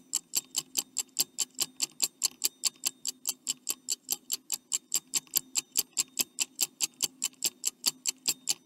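Stopwatch ticking sound effect: quick, even ticks about four times a second, counting down the time to answer.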